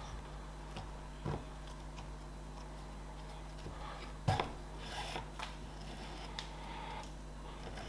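Leather sheath being hand-stitched: needle and thread drawn through the stitching holes and pulled tight, with scattered small clicks and ticks, the loudest about four seconds in, over a steady low hum.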